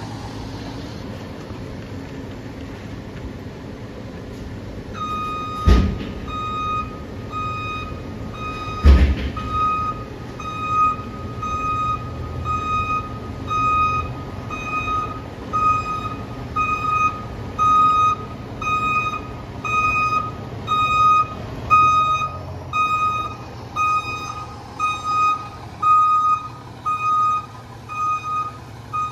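Fire engine's reversing alarm beeping steadily, a little over once a second, over its diesel engine's low running rumble as the truck backs into the bay. The beeping starts about five seconds in, and two sharp loud bursts come a second and then about four seconds after it starts.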